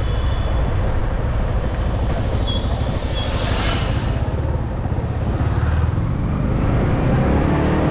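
A single-cylinder Yamaha R15 motorcycle being ridden through traffic: a steady rush of wind and road noise with the engine running underneath, and a brief swell of passing traffic about three seconds in.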